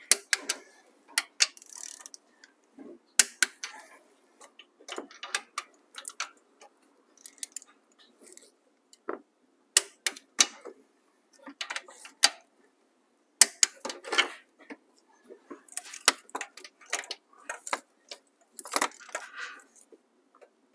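Click-type torque wrench ratcheting and clicking as cylinder head bolts are tightened to 40 ft-lb, with metallic clinks of the socket and wrench. The sharp clicks come irregularly, a few seconds apart, between short bursts of ratcheting.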